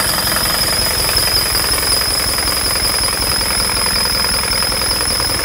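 Idling engine with an exhaust leak: rapid, even puffing or ticking at the firing rate. A steady high-pitched whine runs over it.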